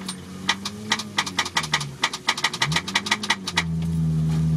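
Engine of an off-road 4x4 crawling through marsh, its pitch rising and falling with the throttle, over a rapid run of sharp clicks and rattles. About three and a half seconds in the clicking stops and the engine settles into a louder, steady note.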